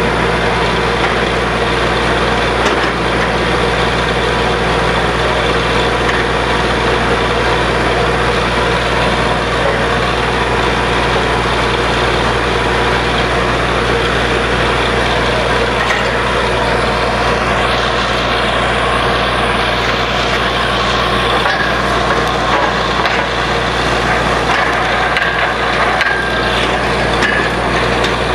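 Borewell drilling machine running steadily: a constant machine hum under a dense, even rush of drilling noise.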